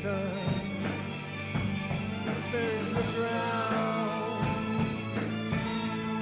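Background music: a rock song with guitar and a sung melody over a steady beat.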